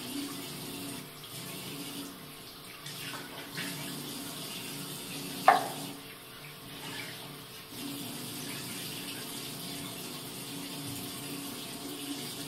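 Water running from a bathroom sink's mixer tap and splashing into the ceramic basin while the tap and basin are scrubbed with a sponge. A single sharp click stands out about five and a half seconds in.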